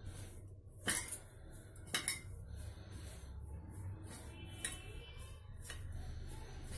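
Hand rubbing oil into flour in a stainless steel plate: soft rubbing and scraping, with a few sharp metallic clinks on the plate, the loudest about one and two seconds in.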